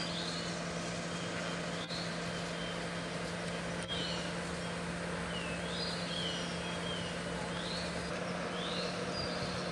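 Outdoor ambience: birds chirping, short rising and falling notes about once a second, over a steady low hum and background hiss.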